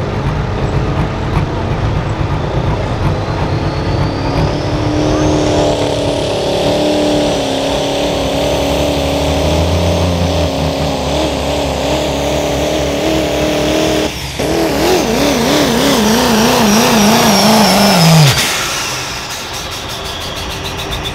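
Turbocharged diesel pickup pulling a sled at full throttle. Its engine revs up from about four seconds in under a rising high turbo whistle, and the engine pitch wobbles rapidly in the last few seconds of the pull. Near the end the engine drops away sharply as the throttle is released at the end of the run.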